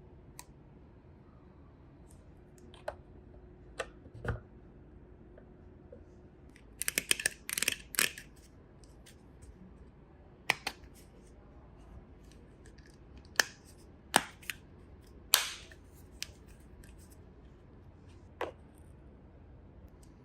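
Scattered sharp clicks and snaps from small hard objects being handled. About seven seconds in there is a quick run of rapid clicks and snips, and single sharp clicks follow every second or two.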